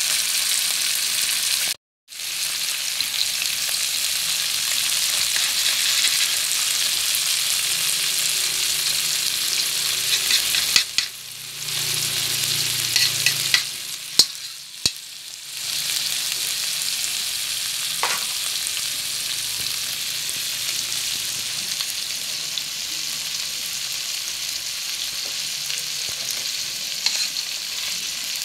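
Shrimp and sliced garlic frying in oil in a wok, a steady sizzle, with a few sharp clicks of a spatula against the pan around the middle. The sizzle cuts out for a moment about two seconds in and dips briefly in the middle.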